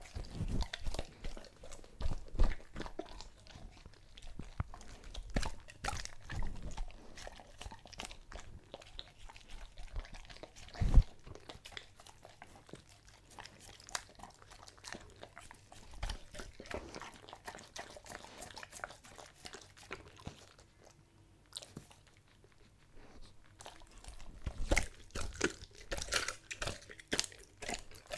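German Shepherd eating a raw meal of meat and bone off a wooden board, close to the microphone: irregular wet chewing and crunching. One sharp, loud crunch comes about eleven seconds in, and there is a short lull a little after twenty seconds before the crunching starts again.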